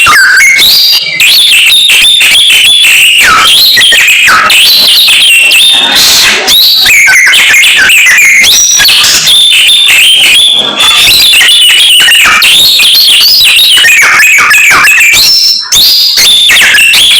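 Samyong songbird singing without pause: a loud, rapid, ever-changing stream of whistled notes and trills, broken only by a few very short gaps. This is the bird 'gacor', in full non-stop song.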